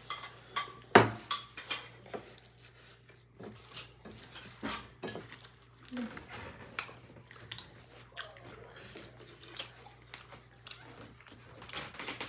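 Spoon clinking and scraping on plates and bowls, with irregular light clicks of tableware; a sharper knock about a second in is the loudest.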